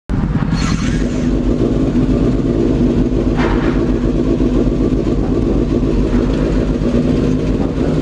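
Kawasaki ZX-6R inline-four engine idling steadily, with two short rushes of noise over it, about half a second and three and a half seconds in.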